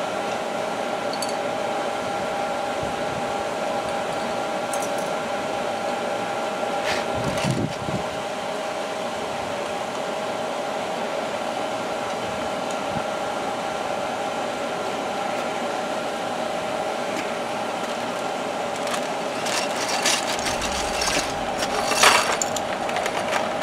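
A steady machine hum, with a few clicks and rustles as small plastic toy-tool parts and a plastic bag are handled; the loudest handling comes a little before the end.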